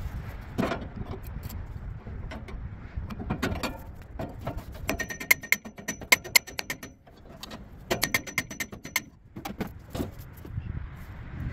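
Hammer striking a sheet-steel AC blower housing and its motor mount: scattered metallic knocks, with two runs of quick ringing taps about halfway through and again a few seconds later.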